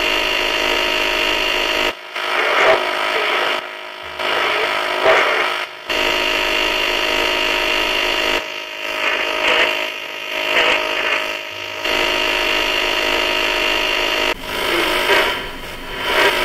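Hacked Morphy Richards R184 radio sweeping the AM band through a spirit box: steady buzzing static and hum that changes abruptly every couple of seconds as it jumps between stations, with short garbled fragments of broadcast sound in between.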